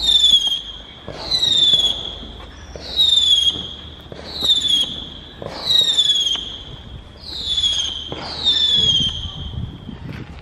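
Whistling fireworks going off one after another, about eight shrill whistles in a row, each starting high and sliding down before it fades, spaced a little over a second apart.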